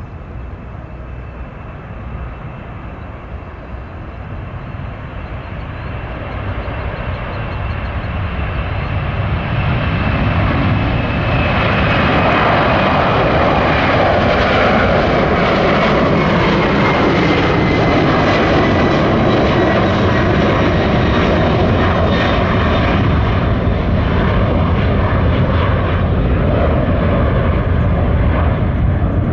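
A Boeing 747-400 freighter's four jet engines at takeoff power as it departs. The engine roar grows steadily louder for about ten seconds, then holds as a loud steady rumble, with a high whine that slowly falls in pitch as the jet passes.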